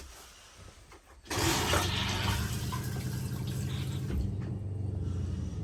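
Trailer toilet being flushed: water suddenly starts rushing about a second in and runs steadily, with a low hum underneath.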